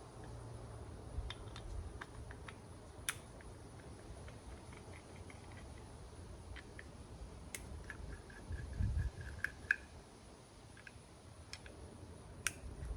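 Light clicks and taps of small metal and plastic wheel center-cap parts being handled and worked with hand tools. A short run of rapid ticks comes a little past halfway, with a dull thud around nine seconds in.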